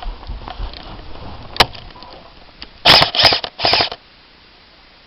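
Airsoft gun firing three short bursts close by, with a single sharp click about a second earlier.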